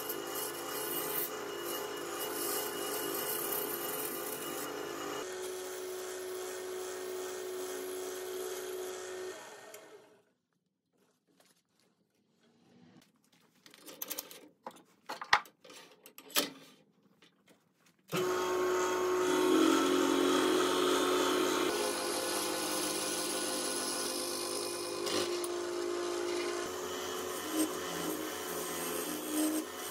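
Jet wood lathe motor running while a turning tool cuts a spinning wooden blank, the rasping of the cut over the motor's steady hum. About ten seconds in the lathe winds down and stops, a few clicks and knocks follow as the tailstock is handled, then the lathe starts abruptly about eighteen seconds in and cutting resumes.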